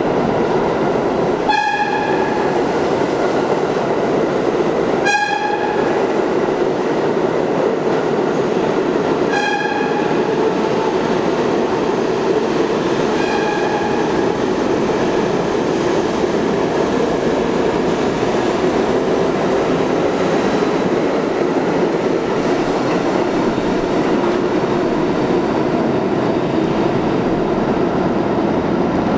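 Budd R32 subway train running through a station without stopping, with a steady rumble of wheels and motors. Its WABCO AA-2 air horn gives four short blasts in the first half, each one the same single note and each a little fainter.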